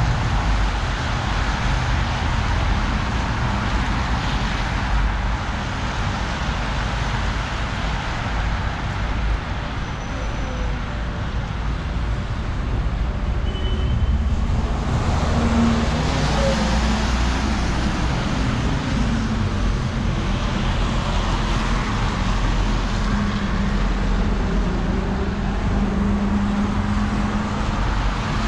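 Steady city road traffic: cars driving on a wet road, a continuous hiss of tyres and engine noise that swells about halfway through as a vehicle passes close by.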